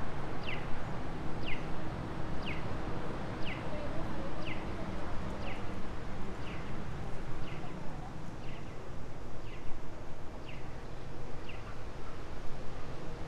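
Electronic bird-call chirps of a pedestrian crossing's audible signal, one short falling chirp about every second, stopping about twelve seconds in. Steady city street noise underneath.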